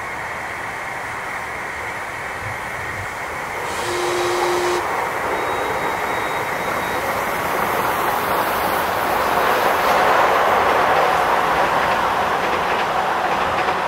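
Miniature 7¼-inch gauge steam locomotive hissing steam while standing at the platform, the hiss swelling louder in the last few seconds. A brief steady tone sounds about four seconds in.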